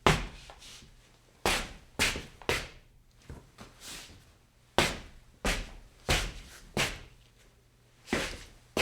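Shoes scuffing and stepping on a stone floor: about a dozen sharp, gritty scuffs at an uneven pace, each dying away quickly.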